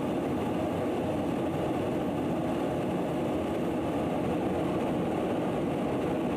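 Steady in-flight drone of aircraft engines and rushing air, heard from aboard an aircraft during aerial refuelling.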